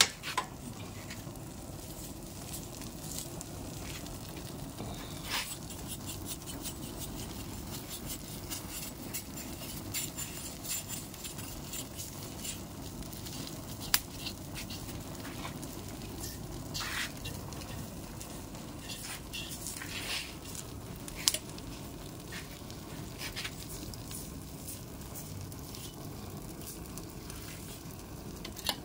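Wood fire under a whole ram carcass crackling, with the burning hide and fat sizzling steadily. Sharp pops come now and then, two of them louder, partway through.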